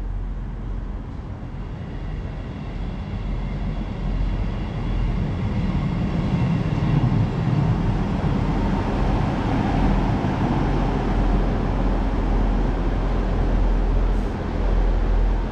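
South Western Railway diesel multiple unit pulling into the platform alongside, its engine and wheel rumble growing louder about four seconds in and staying loud as the carriages run past and slow.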